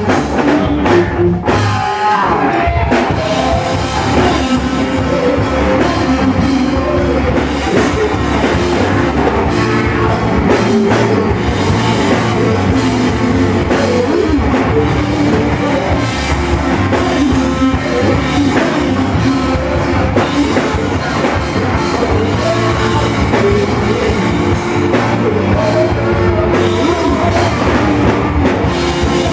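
Rock band playing loud with a drum kit and guitars, steady throughout.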